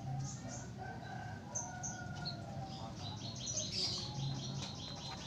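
Small birds chirping, with a quick run of rapid chirps about three seconds in.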